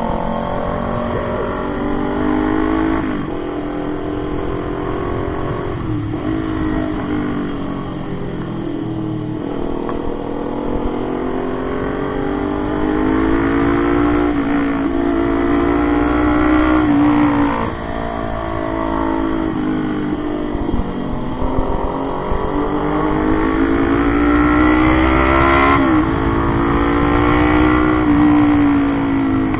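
Motorcycle engine under way, revving up through the gears: its pitch climbs and drops back at each gear change, about six times, over a steady low wind rumble.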